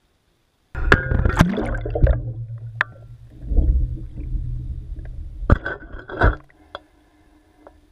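Underwater camera housing moving through the water, picking up water gurgling and sloshing with sharp clicks and knocks against the housing over a low hum; two loud knocks come near the end before it goes faint.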